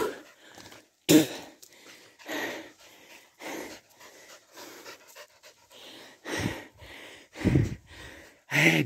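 Heavy panting, about one loud breath a second, some of them with a low voiced edge near the end.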